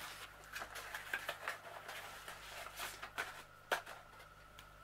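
Faint handling noises: scattered light clicks and rustles of craft-kit items being moved about on a tabletop, with one sharper click near the end.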